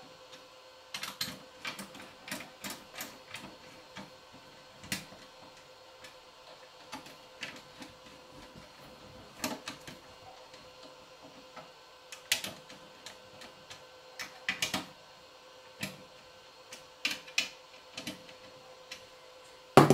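Scattered clicks and knocks of hands reassembling an Innosilicon A4+ crypto miner, fitting its fans and parts back into the case, over a faint steady hum.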